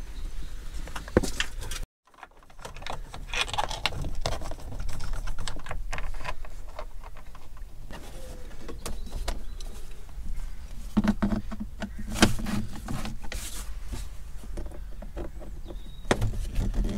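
Irregular clicks, taps and scrapes of plastic footwell trim and a floor mat being handled and fitted back into place in a van cab, with a screwdriver being worked near the end. The sound cuts out for a moment about two seconds in.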